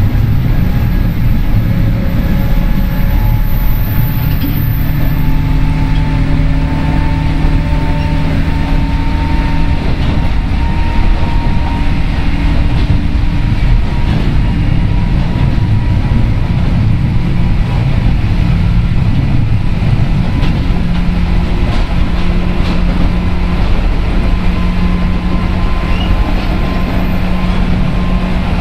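JR 103 series electric train running at speed, heard from inside one of its motor cars. Traction-motor and gear hum sits over a steady rumble of wheels on rail, with a few held tones that climb slightly a few seconds in and then level off.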